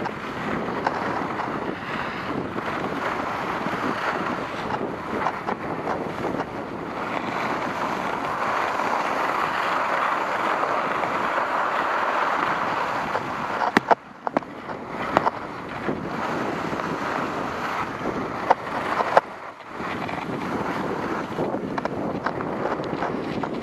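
Skis sliding over packed snow with wind rushing across the microphone, a steady hiss that swells in the middle. A few sharp knocks and two short dips break it up in the second half.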